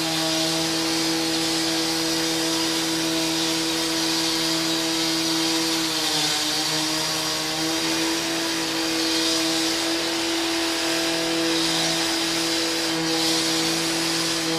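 Angle grinder running steadily with a high motor whine over a hissing disc noise; its pitch sags briefly about six seconds in, then comes back up.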